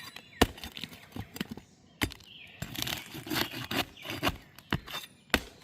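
Roofing nails being pried out of lifted asphalt shingles: scraping and tearing, with sharp knocks about half a second in, about two seconds in and near the end.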